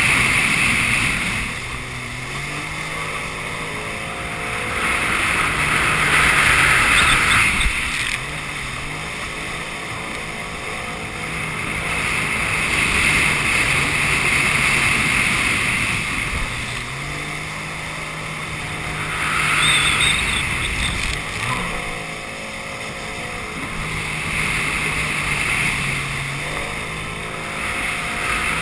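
Jet ski engine running under way, its pitch stepping up and down several times as the throttle changes. Over it is a loud rush of wind and water spray that swells and fades every several seconds.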